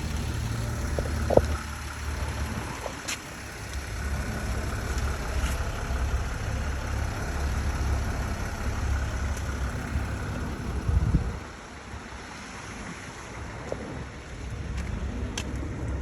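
Mercedes Vito 120 CDI's 3.0-litre V6 diesel idling steadily. About eleven seconds in there is a single thump, and the sound is quieter for a few seconds after it.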